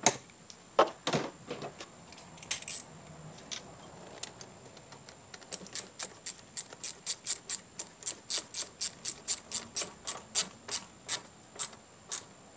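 Rubber coolant hose being worked onto its outlet with a few knocks and rubbing. Then, from about halfway in, a steady run of sharp clicks, about four a second, from a hand tool tightening the hose clamp.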